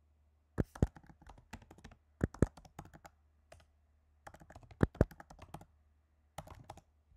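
Typing on a computer keyboard: quick runs of keystrokes in four bursts with short pauses between, a few heavier key strikes standing out.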